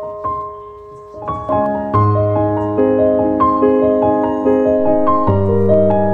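Background piano music: a light melody of short notes that thins out briefly about a second in, then comes back fuller with low bass notes from about two seconds.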